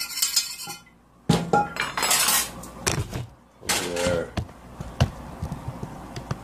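Kitchen utensils and a skillet scraping and clattering: a scrape at first, then a sharp metal clank a little over a second in, followed by lighter knocks and clinks as the pan is handled on an electric stove's coil burner.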